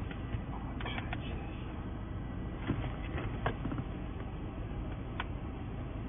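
Steady low rumble of a car interior, with a few light clicks and taps from handling a laptop and plugging in its USB-C charging cable.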